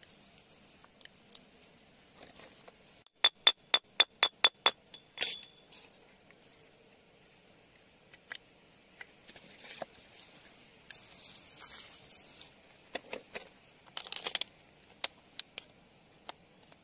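A metal tool tapping and scraping on wet stone and gems: a quick run of about eight sharp, ringing clinks about three seconds in, then scattered taps, brief scraping hiss and a few more clinks near the end.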